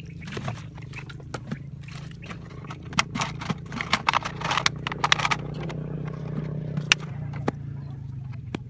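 Thin plastic water bottles being handled and squeezed by hand, giving a run of crinkling clicks and crackles that is busiest in the middle, with a few sharp snaps. A steady low hum runs underneath.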